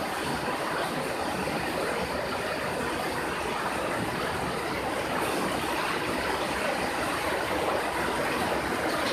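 Steady rush of running water in a flow-through hatchery's Weiss jar incubators, where water circulates up through the jars to keep the carp eggs moving.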